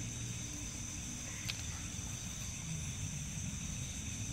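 Night insects chirring in a steady, high-pitched chorus, with one faint click about a second and a half in.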